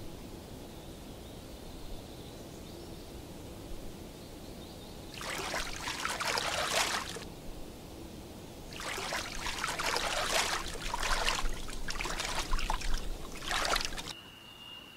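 A grizzly bear wading into shallow pond water: water sloshing and splashing in bursts, about five seconds in and again from about nine seconds, over a low steady water murmur.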